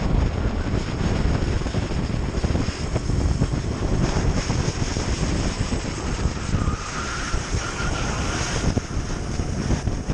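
Onboard sound of a Sodi RT8 racing kart at speed: heavy wind buffeting on the microphone over the running engine. A faint whine rises over it for a second or two about two-thirds through.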